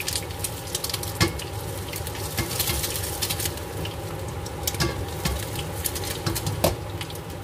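An egg frying in hot oil in a wok, sizzling and crackling steadily, with a few sharper clicks.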